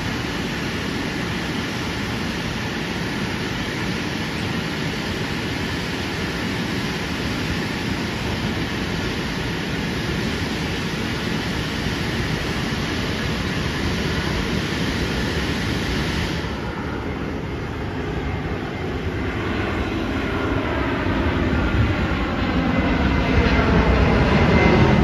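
Airbus A320-214 airliner on landing approach, its CFM56 jet engines making a steady rushing noise that swells as it comes in low overhead. A whining engine tone rises in the last few seconds.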